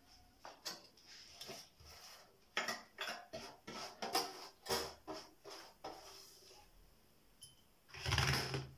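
Kitchen dishes and utensils clinking and knocking as they are handled: a string of small knocks and clicks, then one louder, longer clatter near the end.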